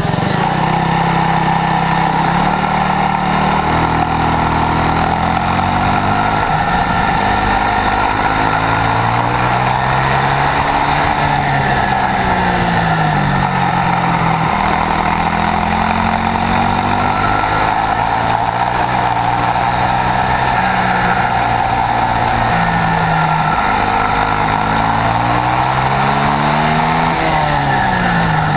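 Swissauto 250 four-stroke kart engine driving a shifter kart at racing speed. It revs up and down the whole time, the pitch climbing along the straights, then stepping and falling through gear changes and braking into corners.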